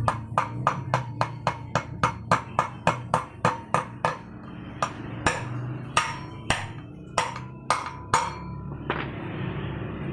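Steel hammer striking a metal drift on a motorcycle front wheel hub, driving in a replacement wheel bearing: sharp metal-on-metal blows, each with a short ring. They come about four a second for the first few seconds, then slow to spaced single blows, the last about nine seconds in.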